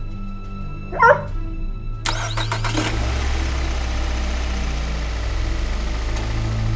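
A car engine starting about two seconds in, with a short burst of cranking before it settles into a steady low running rumble, over background music. A brief high whine comes about a second in, just before it.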